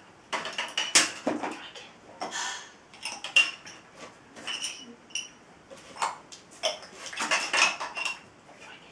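Plastic Connect 4 counters clacking and clattering as a dog picks them up in her mouth and knocks them against the plastic game frame: a run of irregular short clicks.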